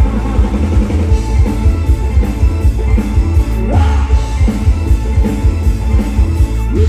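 Loud live band music with a heavy, steady bass-and-drum beat and a singing voice.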